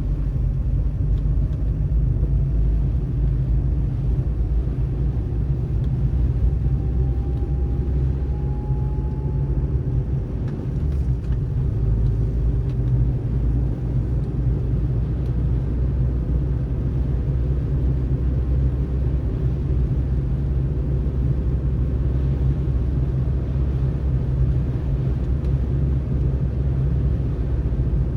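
Car driving on snowy roads: a steady low rumble of tyres and engine, with a faint rising whine over roughly the first ten seconds.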